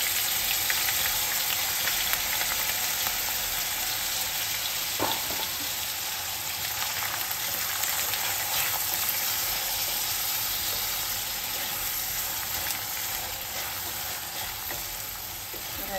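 Soaked, drained long-grain rice sizzling in hot ghee in a stainless steel kadhai, stirred with a wooden spatula that lightly scrapes the pan. The sizzle is steady, easing slightly near the end.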